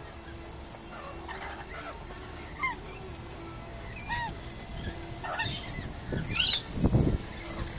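A flock of rainbow lorikeets feeding and calling with short, shrill squawks scattered throughout, the loudest a rising screech about six seconds in, followed by a brief low rumble.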